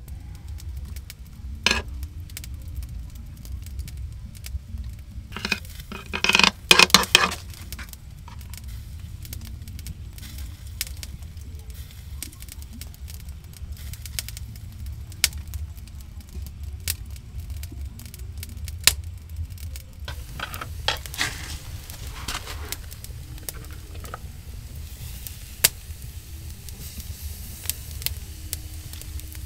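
Steady sizzling and crackling at a cooking fire, with scattered sharp clicks and clinks, and a louder clattering flurry about six to seven seconds in.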